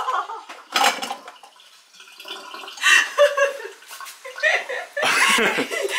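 People laughing and exclaiming in short bursts without clear words, over the sound of running water.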